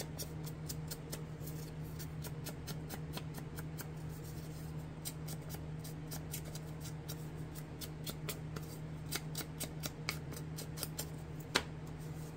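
A small foam ink dauber tapped quickly against the edge of a paper strip, inking it to look aged: light, irregular taps several a second, over a steady low hum. One sharper knock near the end as the dauber is set down on the table.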